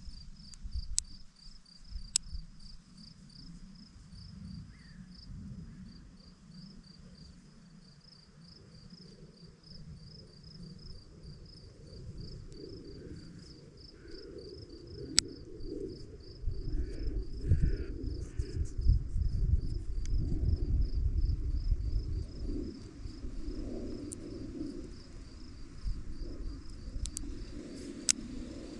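A cricket chirping in a steady, evenly pulsed rhythm, with low rumbling noise growing louder past the middle and a few sharp clicks.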